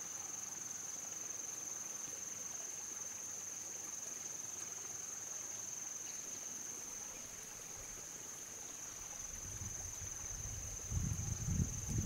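Rainforest insects droning, a steady high-pitched tone. A low, uneven rumble builds up near the end.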